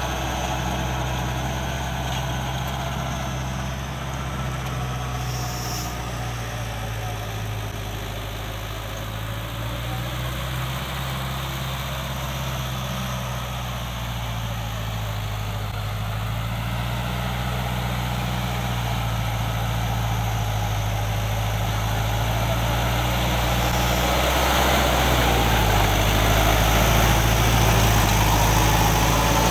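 Sonalika Tiger tractor's diesel engine running steadily under load in low-range fourth gear, pulling a Sicma rotavator whose blades churn the soil. It grows louder over the last few seconds as the tractor comes close.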